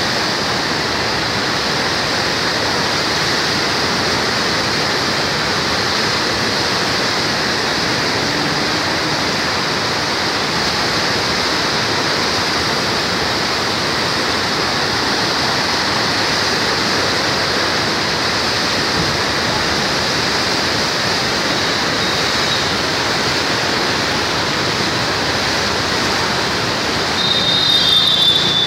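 Saptakoshi River in flood surging through the Koshi Barrage: a steady, dense roar of rushing, churning water. Near the end a brief high-pitched tone sounds over it.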